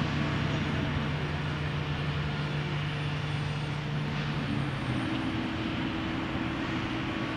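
Steady machinery hum over outdoor noise. Its low tone gives way to a higher tone about four and a half seconds in.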